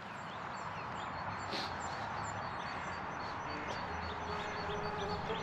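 Outdoor ambience: a steady hiss with faint, short, high bird chirps scattered through it.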